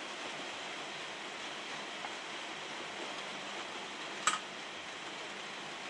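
Steady background hiss, with a single sharp click a little over four seconds in.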